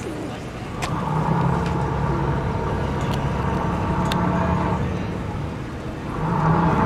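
A motor engine humming at a steady pitch, swelling up about a second in and fading, then swelling again near the end.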